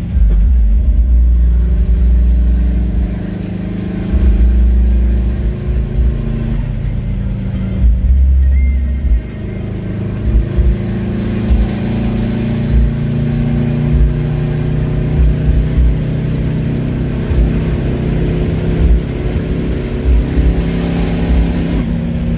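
Subaru Impreza GC8's turbocharged flat-four engine with a straight-through exhaust, driving under load with a heavy low rumble. The loudest stretches come in the first few seconds and again about eight seconds in, with short peaks of level through the second half.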